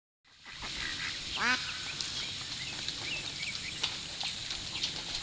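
A single short call with a rising pitch, about a second and a half in, from an animal: a duck's quack or a dog's whine. It stands over a faint outdoor background with small, high bird chirps scattered through.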